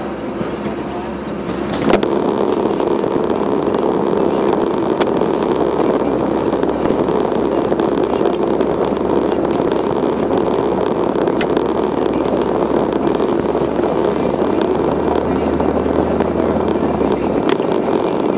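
Steady engine and road noise inside a moving vehicle's cabin, getting louder about two seconds in, with a few sharp clicks or rattles here and there.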